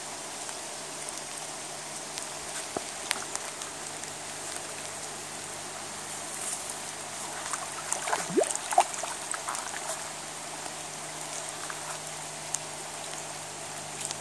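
Steady rain falling on a river and its bank, with scattered drops pattering. About eight seconds in comes a short burst of splashing as a northern watersnake thrashes with a bullhead in the shallows, with a brief rising squeak among it.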